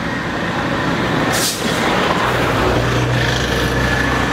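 Traffic noise dominated by a large vehicle's engine running. A short hiss comes about a second and a half in, and a deeper engine hum swells in about halfway through.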